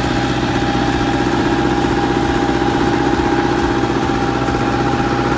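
Diesel engine idling steadily, with a thin steady whine above its low running note.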